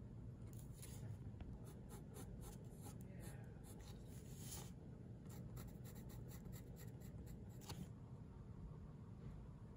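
Faint scratching of pencil and pen on textured watercolour paper in quick short strokes, with one longer scratch about four seconds in. The strokes stop shortly before the end.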